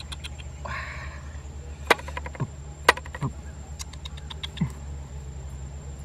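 Metal hand tools (a hand-saw blade and a screwdriver) clinking and tapping as they are picked up and laid on a wooden board: a run of light clicks, with two sharper clicks about a second apart in the middle.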